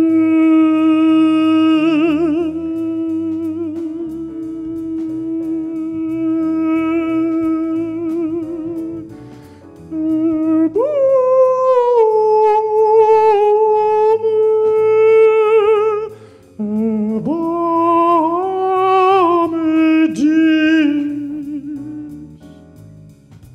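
A man's amplified voice singing long held notes in a high register. First comes one steady note for about nine seconds, with a brief wavering near the start. Then he jumps to a higher held note, and near the end sings shorter notes joined by slides before fading out.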